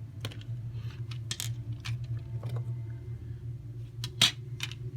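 Small clicks and ticks of a screwdriver backing out the screw of an electrical outlet's cover plate, with one sharper click about four seconds in.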